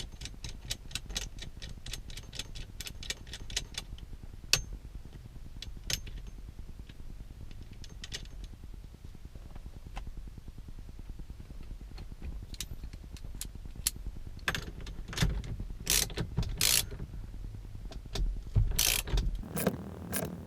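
Socket ratchet clicking as the 18 mm steering-wheel nut is run down onto the steering shaft over the new hub. It starts with a quick run of clicks, about five a second, for a few seconds. Then come scattered single clicks, and louder clanks and handling noise toward the end.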